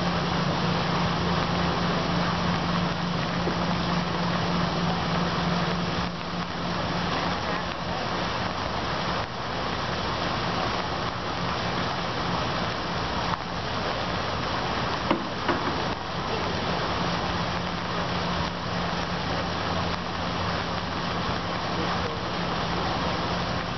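Steady hiss of falling rain, with a low steady hum from a motor or engine that fades out about six seconds in and comes back near seventeen seconds in. A couple of small knocks about fifteen seconds in.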